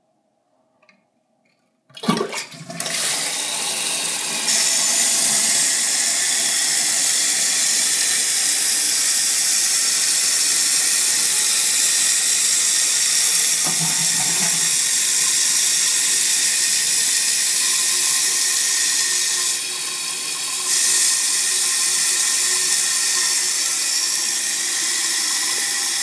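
A 1963 American Standard Cadet toilet is flushed by its tank lever about two seconds in. Water rushes loudly out of the tank, followed by a steady hiss and rush as the replacement Fluidmaster fill valve refills it.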